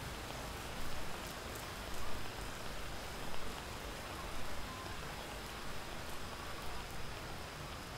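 Steady hiss of light rain falling on a wet street, with a few brief, slightly louder low swells.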